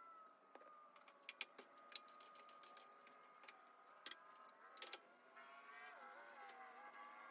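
Faint metallic clicks and knocks of a steel scroll chuck being unscrewed from a wood lathe's spindle and another being threaded on, bunched about a second in and again around four to five seconds in, over a faint steady whine of several tones.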